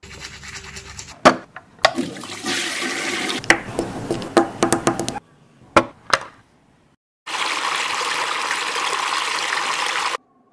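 Small plastic clicks and taps from a toy sink being handled over water noise, then two sharp clicks as a mini toy washing machine's lid is shut. About halfway through, the toy washing machine runs with a steady swishing of water swirling in its drum for about three seconds, then stops abruptly.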